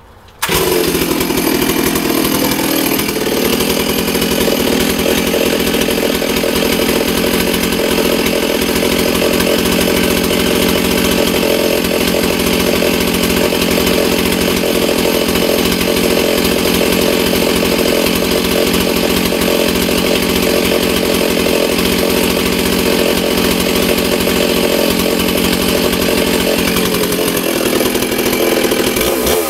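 Stihl 066 Magnum two-stroke chainsaw starting about half a second in, running a little fast for the first few seconds, then settling into a steady idle with the chain not cutting.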